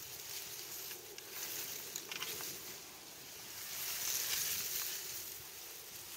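Steady outdoor hiss with faint rustling and a few light clicks about one and two seconds in.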